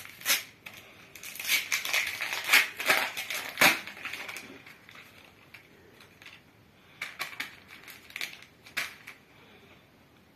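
Foil wrapper of a football trading-card packet being torn open and crinkled in the hands, in quick crackly bursts over the first few seconds. After that come a few light clicks as the cards are handled.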